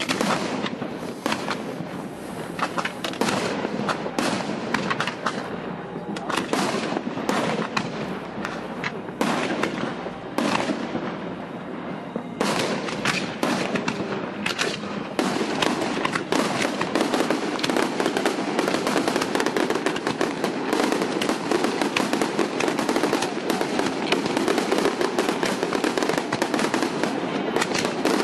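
Aerial fireworks display: a rapid stream of shell bursts and crackling. From about twelve seconds in it grows denser and louder into a near-unbroken barrage.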